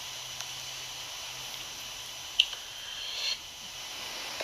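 Faint steady hiss of background noise with no alarm sounding, broken by one short high click about two and a half seconds in and a brief soft rustle just after.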